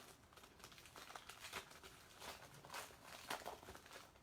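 Faint rustling and crinkling of baseball trading cards and their packaging being handled, with a few soft clicks.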